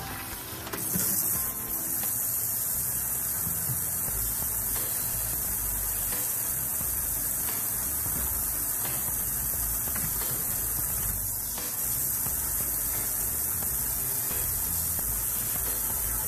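Garden hose spray nozzle running, a steady hiss of water spraying out onto the deck and into the pool, with a short louder burst about a second in.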